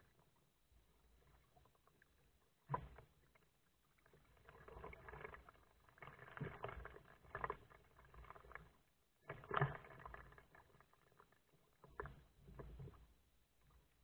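Kayak paddling: water swishing and splashing with the paddle strokes, with a few sharp knocks.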